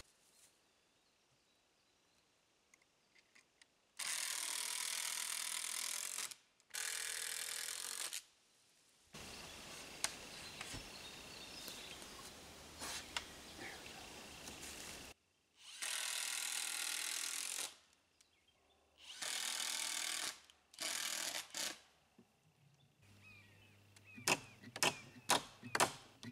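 Cordless drill running in several short bursts of one to two seconds, fastening the framed stud walls together. Near the end, a hammer strikes several times, about three blows a second.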